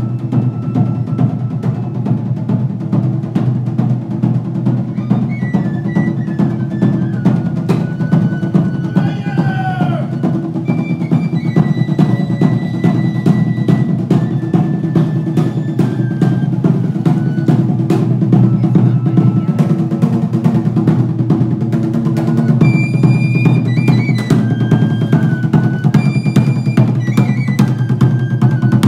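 Fast, steady drumming, with a high melody of held notes stepping from pitch to pitch above it. There is a brief sliding tone about ten seconds in.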